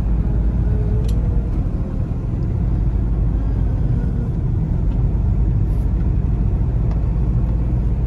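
Inside the cab of a moving 2004 CI Riviera motorhome: a steady low rumble of engine and tyre noise as it drives along the road.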